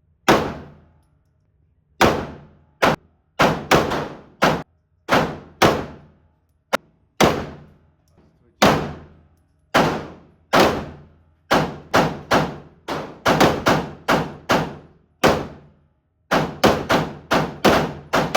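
Gunfire: a long run of about two dozen single shots at uneven spacing, each followed by a ringing echo that dies away over about half a second.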